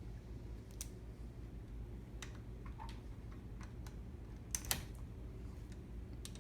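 Sparse light metallic clicks and taps of a hex key and an 8 mm button-head bolt, as the bolt is threaded back into the trike's spindle pivot by hand. The loudest is a sharper double click about four and a half seconds in, over a faint low hum.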